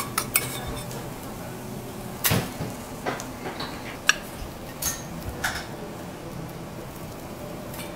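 Metal teppanyaki spatula clinking and scraping against a porcelain plate as food is set onto it: a string of short sharp clinks, the loudest about two seconds in, over a steady low background hum.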